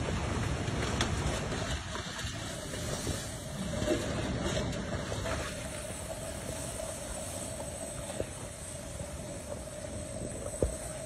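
A van's engine running steadily with a constant whine as it pushes through flowing flood mud, over a low rushing rumble. A single sharp knock near the end.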